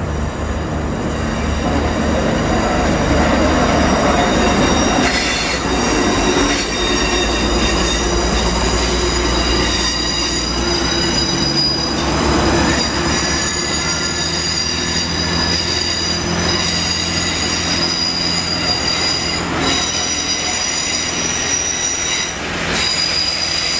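Wheel flange squeal from a Class 43 HST train rounding tightly curved track at low speed: several high, steady squealing tones held over a low diesel rumble.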